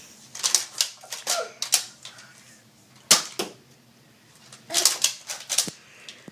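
Sharp plastic clacks of a Nerf blaster being primed and fired: a quick run of four or five clacks, then two, then another run of about four.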